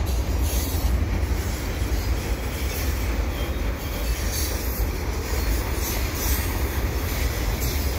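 Freight train of tall auto rack cars rolling past, a steady, unbroken rumble of steel wheels on the rails.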